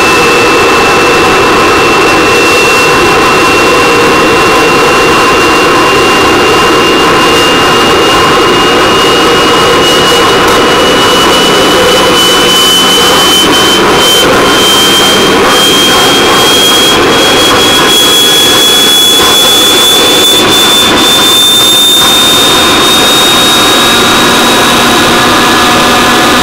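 Small jet engine on a bike running loud and steady, with a high whine that climbs slowly in pitch.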